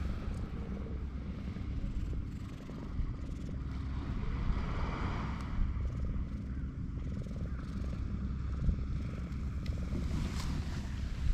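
Wind buffeting the microphone: a steady low rumble that swells and eases a little.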